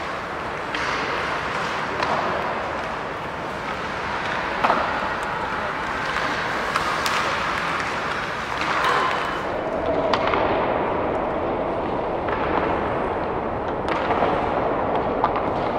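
Ice hockey practice on an indoor rink: skate blades scraping the ice under a steady wash of noise, with sharp cracks of pucks struck by sticks and hitting pads or boards several times.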